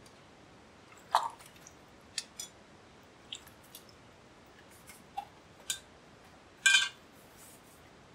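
Scattered light knocks and clinks of breadfruit sticks going into a stainless steel bowl and a knife and wooden cutting board being set down. The loudest is a short ringing metal clatter near the end.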